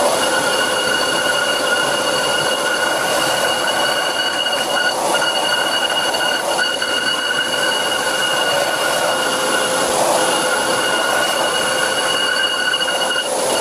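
Lathe tool facing a spinning cast iron brake disc, with a steady high-pitched squeal over the cutting noise that breaks off briefly twice: chatter from vibration that stays at every speed tried.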